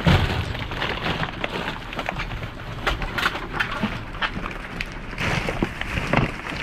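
Rummaging through a dumpster: packaged goods and packaging rustling and crinkling, with many scattered light knocks and clicks as items are handled and moved. The rustling thickens about five seconds in.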